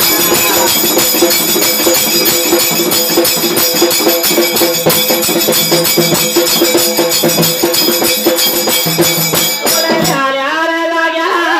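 Instrumental interlude of Dhangari ovi folk music: fast, dense rattling percussion with metallic ringing over a steady held tone. A singing voice comes back in about ten seconds in.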